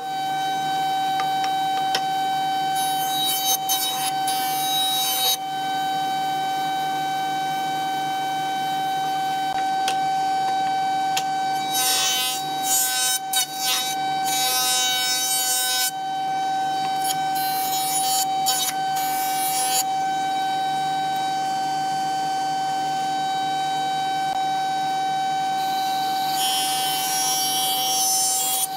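Industrial jointer running with a steady high whine. Hissing cutting noise comes and goes several times as the hardwood board is fed over the cutterhead.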